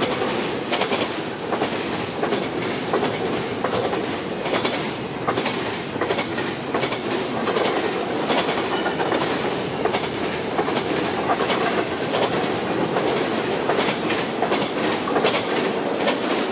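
Double-stack intermodal train cars rushing past at about 50 mph: a steady, loud rumble of wheels on rail with frequent sharp clicks as the wheels cross rail joints.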